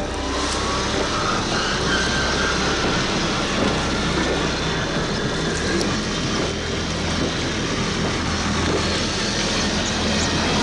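Traxxas TRX-4 Land Rover Defender RC crawler driving over loose rocks and gravel: the electric motor and drivetrain whine while the tyres crunch and clatter over stones, a steady, dense noise.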